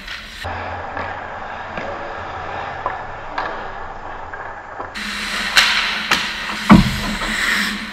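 Ice hockey play close to the net: skates scraping on ice with stick and puck clacks, then a few sharp hits in the last three seconds as a shot comes in on the goalie, the loudest nearly seven seconds in.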